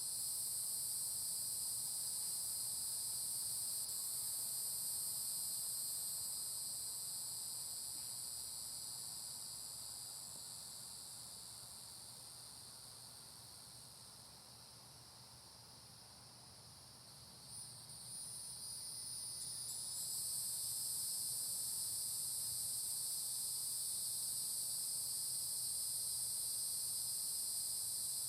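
Chorus of cicadas in trees making a steady, high-pitched buzzing drone. It fades down over several seconds, stays low through the middle, then swells back to full strength about twenty seconds in.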